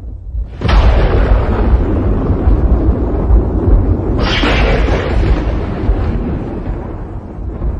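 Tornado wind blowing hard in gusts and buffeting the microphone with a deep rumble. One gust surges in under a second in and another about four seconds in.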